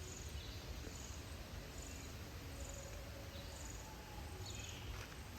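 An insect chirping outdoors: short high chirps repeating about once a second, faint, over a low steady background hum of open air.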